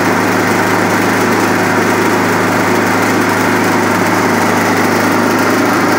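Generac portable generator's engine running at a steady speed with a constant low hum, under light load while it charges a battery power station.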